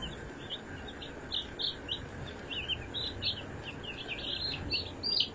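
Baby chicken chick peeping over and over: a continuous string of short, high peeps, several a second.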